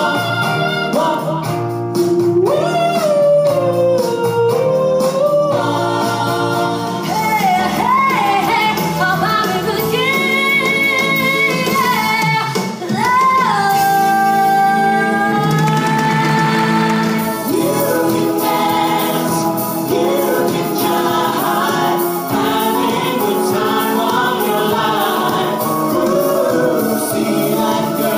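A woman belting a song over band accompaniment, bending into and holding long notes. About two-thirds of the way through, the music changes to several voices singing together in harmony.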